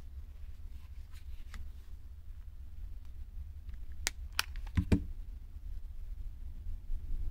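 A hot glue gun handled close by: a few sharp clicks and a knock about four to five seconds in, over a low steady hum, with faint handling of yarn earlier.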